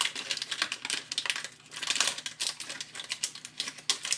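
Foil wrapper of a Pokémon trading card booster pack crinkling as it is handled and opened: a dense run of quick crackles.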